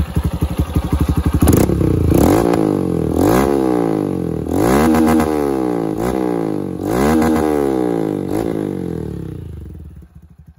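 Honda CG 160 Start's single-cylinder engine breathing through a GRS aftermarket exhaust. It idles with an even, fast pulse, then is revved in several quick throttle blips whose pitch rises and falls, loud at high revs. The sound drops away near the end.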